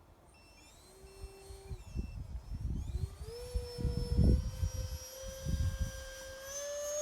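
Electric motor of a radio-controlled plane whining: its pitch climbs for a couple of seconds, then holds steady and steps up slightly near the end. For the first second or two a low-voltage battery alarm beeps faintly and evenly. Wind thumps and rumbles against the microphone.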